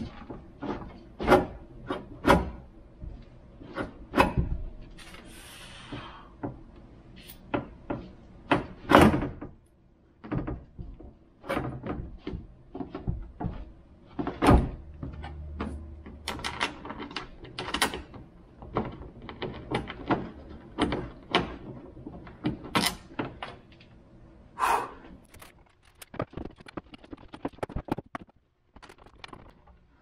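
Irregular clicks, knocks and clunks of hands working parts inside the stripped steel door shell of a 2012 Nissan Rogue, with plastic and metal pieces knocking in the door cavity as the handle assembly is fitted.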